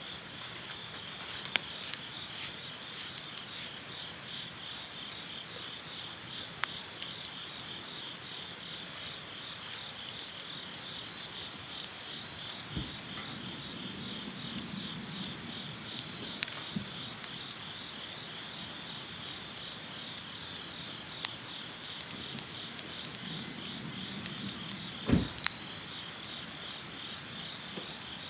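A steady chorus of chirping insects, a fast pulsing trill, with scattered sharp crackles and pops from a wood campfire. Two dull knocks stand out, about halfway through and near the end.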